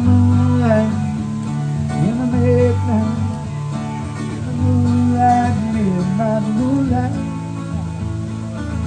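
Live acoustic guitar strumming under a voice singing a slow melody, its notes held and gliding between pitches.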